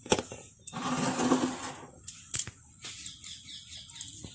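Kitchen handling sounds at the stove: a sharp click near the start, about a second of noisy rustling with a faint hum, then another light click.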